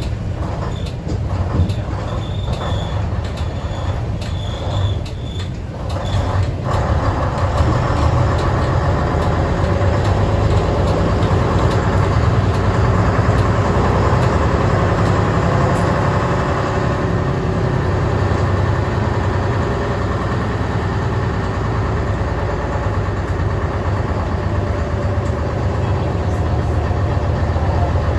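Leyland Titan OPD2/1 bus's six-cylinder diesel engine heard from inside the saloon, running low for the first few seconds, then pulling away about six seconds in and getting louder as the bus gets under way, with road and body rattle mixed in.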